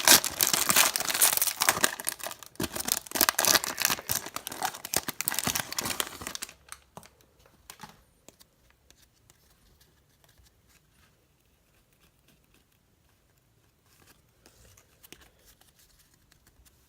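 A trading-card pack wrapper being torn open and crinkled for about six seconds, then only a few faint clicks as the cards are handled.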